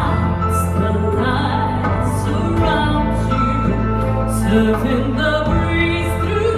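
Stage-show music with an operatic singing voice over sustained bass notes.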